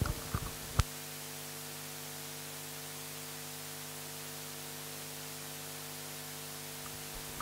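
A few short clicks in the first second, then a steady electrical hum with a layer of hiss.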